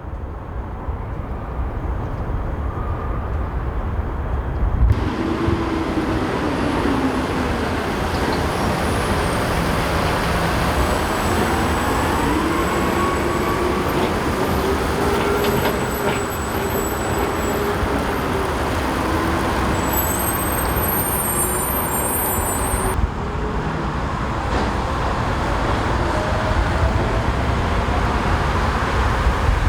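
City street traffic: vehicle engines running and passing over a steady low rumble, with a faint engine tone rising and falling in the middle stretch.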